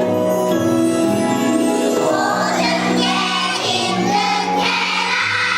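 Children's choir singing in unison over a recorded instrumental accompaniment.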